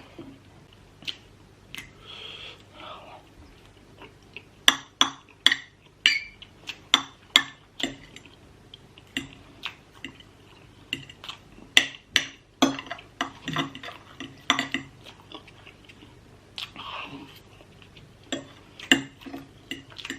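Eating utensils clinking and knocking sharply and irregularly against dishes, with chewing in between, while noodles and chicken are eaten.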